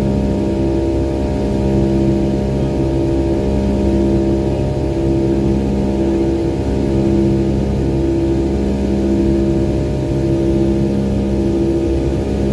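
Boeing 757 cabin drone from its Rolls-Royce RB211 jet engines in flight: a steady, loud hum of several low tones that swells and fades in a slow pulse about every two seconds.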